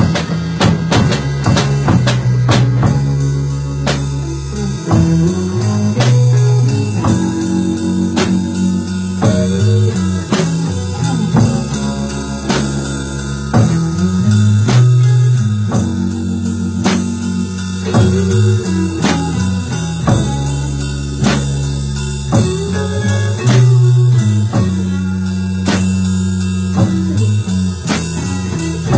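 A live band playing a solemn song: electric guitars holding long notes over a drum kit.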